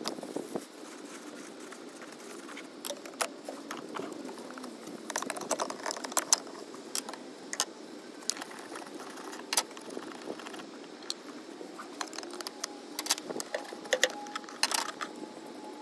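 Hand tools working at the brake line nuts on a BMW ABS/DSC unit: irregular metallic clicks and clinks, in clusters about five seconds in and again near the end.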